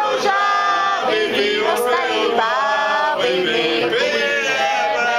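Several men singing together, holding long, drawn-out notes.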